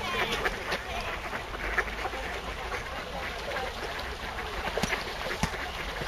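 A flock of ducks quacking and calling over one another, many short calls overlapping, as the birds crowd in to be fed bread.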